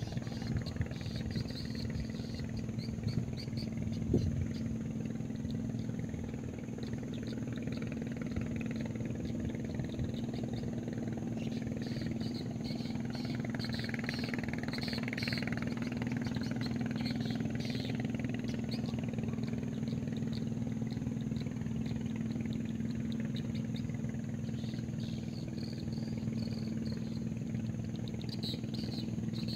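A motor engine running steadily, a low, even hum that holds its pitch throughout.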